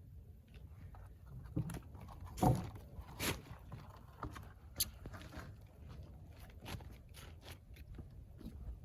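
Irregular light knocks and clicks over a low rumble, with a louder thump about two and a half seconds in and a sharp click near five seconds.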